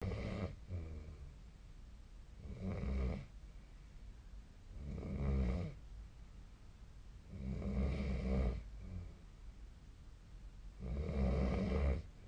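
A sleeping person snoring: a rough, deep snore about every two and a half seconds, five in all, with quieter breathing gaps between them.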